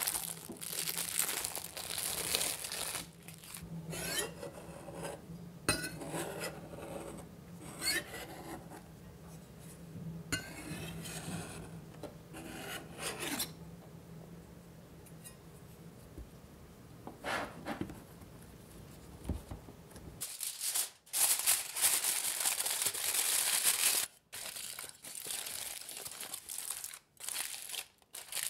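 Plastic cling film rustling as hands pull it off a puff-pastry-lined cake ring, then softer scraping as a knife trims the excess pastry along the ring. From about twenty seconds in, aluminium foil crinkles loudly in fits and starts as it is crumpled into the ring.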